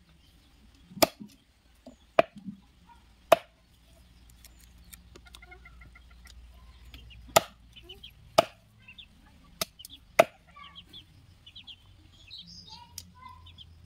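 Heavy machete-style blade chopping chicken meat on a wooden board: about seven sharp chops at uneven intervals, with short faint calls in the background between them.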